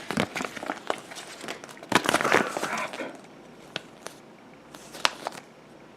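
Paper instruction manual being unfolded and handled: crinkling and rustling, densest about two seconds in, then a few light ticks and rustles.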